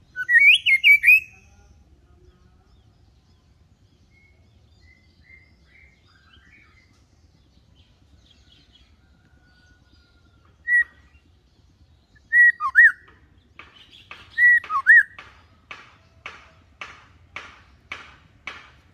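White-rumped shama calling: a quick burst of loud whistled notes at the start, then scattered single whistles and two-note phrases. In the last few seconds comes a steady run of short harsh ticks, about two a second.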